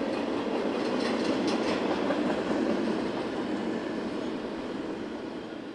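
Train rolling along rails: a steady rumble of wheels on track with a few sharp clicks about a second in, fading out near the end.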